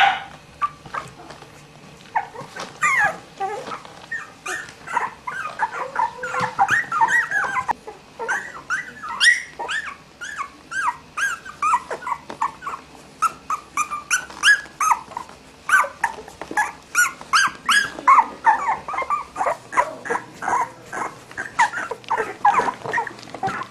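Three-week-old Cavalier King Charles Spaniel puppies whimpering and squeaking: a steady stream of short, high cries that bend up and down, several a second, some overlapping.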